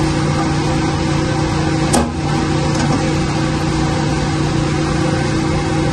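Steady hum of running electric motors and pumps, with one sharp click about two seconds in.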